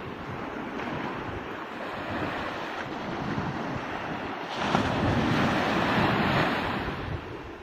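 Small sea waves breaking and washing up onto a sand beach, with wind blowing across the microphone. The surf grows louder a little past halfway through.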